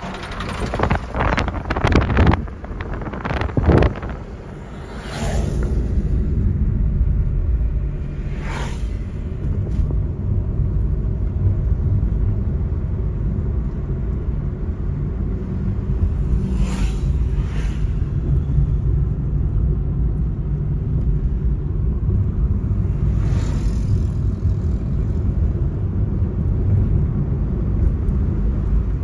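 Vehicle driving along a road, with steady low engine and tyre rumble. Wind buffets the microphone for the first few seconds, and a few brief whooshes come through.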